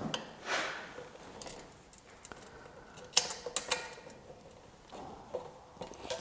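Small metal tools and a steel bracket being handled while the grinder's eye-shield bracket is screwed on: scattered sharp metallic clicks and taps, the loudest two close together about three seconds in, with some soft rustling at the start.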